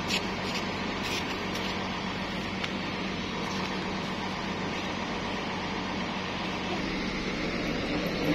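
Parked intercity coach bus idling: a steady low engine hum with a constant drone, growing a little louder near the end.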